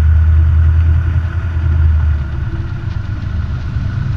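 Robin DR400 light aircraft's piston engine and propeller running at low power while taxiing, a steady low drone heard inside the cockpit.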